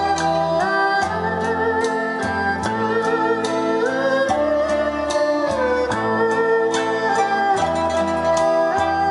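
Music played back through Soliloquy 5.3 loudspeakers driven by an Antique Sound Lab Cadenza valve amplifier. The melody line slides and wavers between held notes over a changing bass line.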